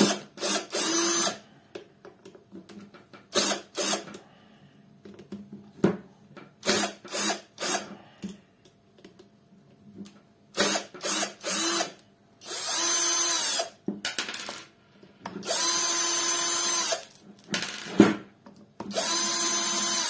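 Cordless drill-driver backing out the tightly fastened screws of an angle grinder's gearbox cover. It runs in several short bursts of a second or two, each spinning up quickly to a steady pitch, with clicks and knocks of handling between.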